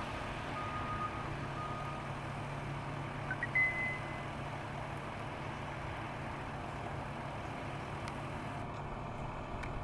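Steady drone of farm harvest machinery running, with a short repeated electronic beep in the first two seconds and a single higher beep about three and a half seconds in.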